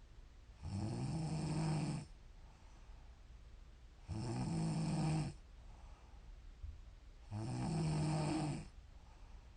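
A woman snoring in her sleep: three snores, each a little over a second long and about three seconds apart, with quiet breathing between them.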